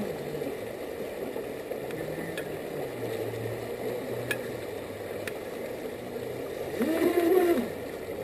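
Pro Boat River Jet radio-controlled boat running through creek rapids over the steady rush of the water. Its electric motor whines, rising and falling in pitch as it is throttled, loudest about seven seconds in.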